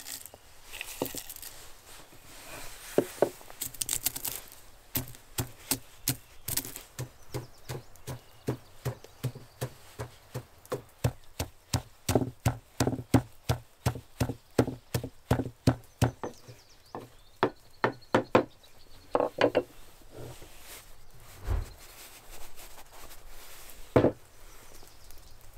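Wooden pestle pounding shelled pistachios in a wooden mortar: a long run of steady knocks, about three a second, that stops a little after the middle. A single wooden knock follows near the end.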